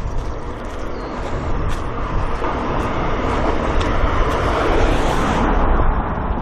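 A road vehicle passing close by: its engine and tyre noise swell to a peak about five seconds in, then fall away.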